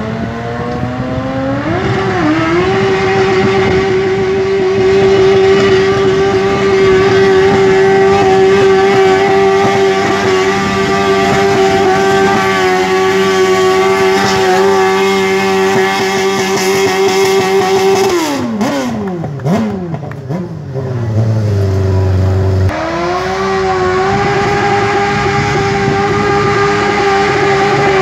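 Lawnmower engine running at high speed with a steady, high-pitched note after rising in pitch at the start. About two-thirds of the way through the pitch slides down in several falling sweeps to a low run, then jumps suddenly back up and holds steady again.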